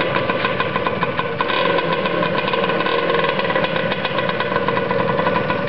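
Kawasaki KMX125R two-stroke single-cylinder engine running steadily at idle, with a fast, even firing beat.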